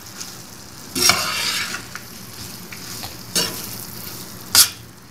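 A spatula stirring and scraping mash (urad) dal in a stainless steel pan over a steady hiss from the hot pan. There is a longer scraping stroke about a second in, and two sharp knocks of the spatula against the pan near the end.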